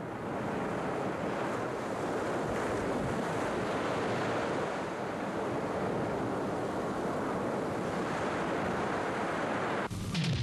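Ocean surf breaking and washing up a beach, a steady rush of waves that cuts off suddenly near the end.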